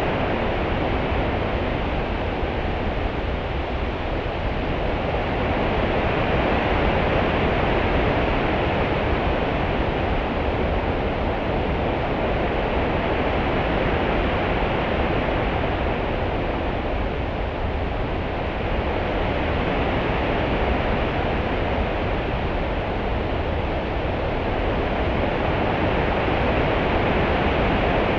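Open-sea water ambience: a steady wash of swell and small ripples that slowly rises and falls every several seconds.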